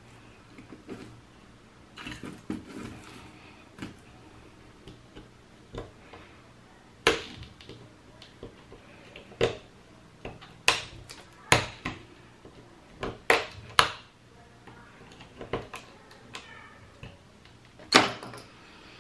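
Irregular sharp clicks with faint scraping between them: a small hand tool's metal tip picking and slipping at a broken screw stuck in a circuit breaker's terminal hole. The clicks come at uneven intervals and are most frequent in the middle of the stretch.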